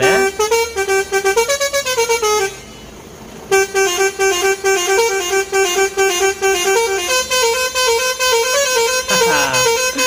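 Telolet multi-tone truck horn playing a tune of short notes that step up and down. It breaks off about two and a half seconds in, then starts up again and plays on.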